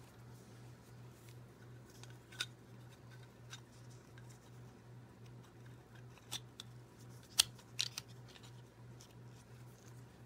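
Hot Wheels Rear Loader Beach Bomb toy car parts, the plastic interior and window and the die-cast body, clicking and tapping as they are fitted together by hand. There are about half a dozen short, sharp clicks, the loudest about seven seconds in, over a steady low hum.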